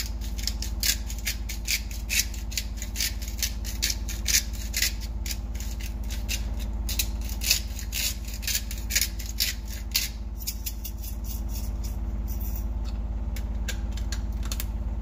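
Pink Himalayan salt grinder being twisted over a pan: a quick run of crunching clicks, several a second, that stops about ten seconds in. A steady low hum runs underneath.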